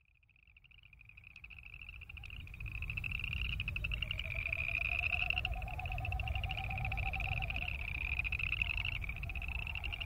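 Chorus of boreal chorus frogs: overlapping rapid, rising trills, each about a second long, repeating one after another. The chorus fades in over the first couple of seconds. A lower pulsed trill sounds in the middle, with a low rumble underneath.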